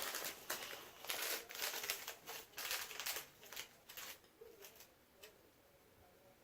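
Paper packaging crinkling and rustling in quick, irregular bursts for about four seconds, then dying down.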